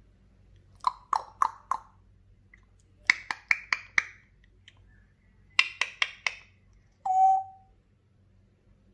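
African grey parrot making three quick runs of sharp clicks, four, then five, then four, each run pitched higher than the last, then one short whistled note.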